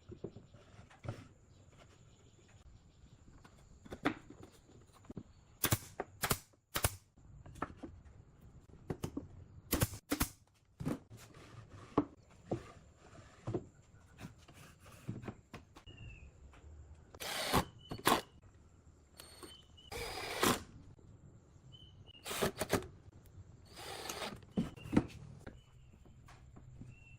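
Woodworking by hand: irregular knocks and taps on wood, with a few longer scraping strokes.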